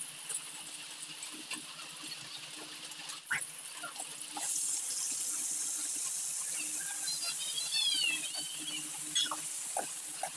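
Garlic, onion and ginger frying in oil in a large aluminium pot, stirred with a metal ladle. About four and a half seconds in, pork goes into the pot and a louder, steady sizzle starts. A few short high squeaky chirps come about seven to eight seconds in.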